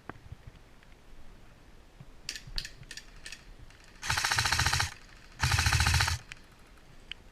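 Airsoft electric gun (AEG) firing two full-auto bursts about a second and a half apart, each under a second long, preceded by a few scattered single clicks.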